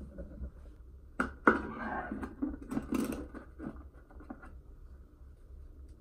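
Handling noise: two sharp knocks about a second in, then about two seconds of rustling and light clunks as plants and rockwork are moved about in a glass tank, over a faint steady low hum.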